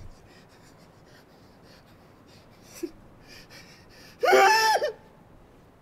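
A person's fast, breathy, distressed breathing, then a loud, high-pitched vocal cry lasting under a second, about four seconds in.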